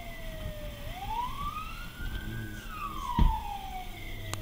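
Fire truck siren wailing from inside the cab over engine and road rumble: the tone slides slowly down, rises again, then slides down once more. A single low thump sounds a little after three seconds in.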